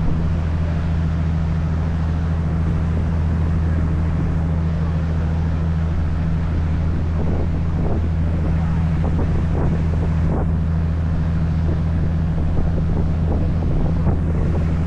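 A sightseeing boat's engine running steadily under way, a constant low drone, with wind buffeting the microphone and water rushing past the hull.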